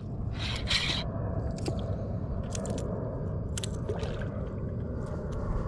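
Rubbing and scattered clicks from a chest-mounted action camera moving against clothing, over a steady low rumble of water and wind.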